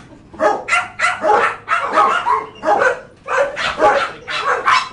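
Dogs in animal-shelter kennels barking over and over, several barks a second, with no pause.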